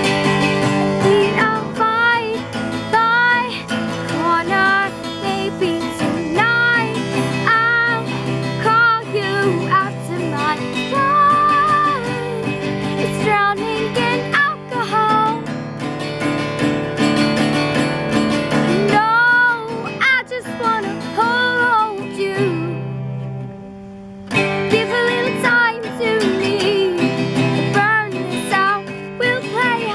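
Acoustic guitar strummed with a girl singing a pop-song melody over it. Near the end the playing thins out briefly, then the strumming and singing start up again.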